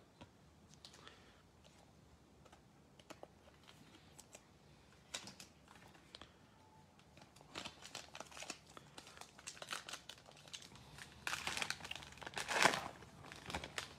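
Faint clicks of trading cards being handled, then from about halfway in the crinkling and tearing of a thin cardboard trading-card box being ripped open by hand, loudest near the end.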